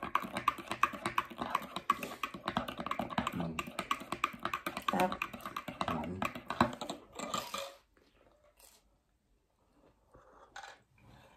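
Cutlery and dishes clattering in quick, irregular clicks and taps, which stop about eight seconds in, leaving a few faint sounds.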